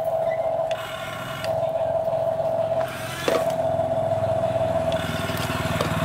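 Huina remote-control toy excavator running, its electric motors and gears whirring with a steady high whine over a low buzz as the arm moves. There is a sharp click about three seconds in.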